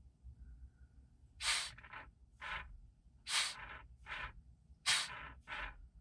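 Short spurts of air hissing out of the truck's air valve exhaust, about seven in a row roughly a second apart, starting about a second and a half in. The valve is leaking hydraulic oil from a port that should only exhaust air.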